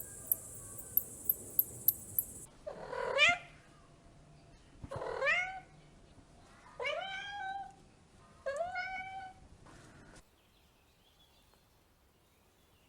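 Domestic cat meowing four times, about two seconds apart, each call sliding up in pitch. Before the first meow, a high steady hiss with sharp regular ticks, about three a second, cuts off suddenly.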